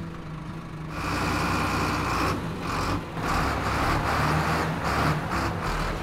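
Concrete mixer truck's diesel engine running, much louder from about a second in.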